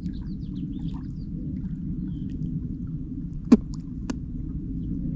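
Steady low wind rumble on the microphone, with faint bird chirps near the start and two sharp clicks about three and a half and four seconds in, the first the louder.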